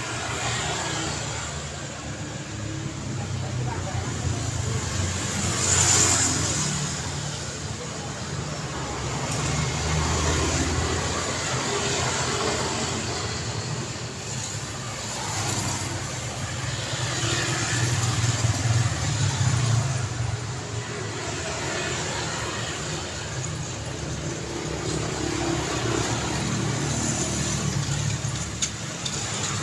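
Road traffic going past: a steady wash of engine and tyre noise that swells and fades as vehicles pass. The loudest pass comes about six seconds in.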